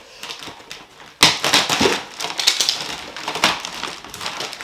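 Plastic packaging wrap crinkling and rustling as a stroller frame is unwrapped and handled, starting sharply about a second in and going on in irregular crackles.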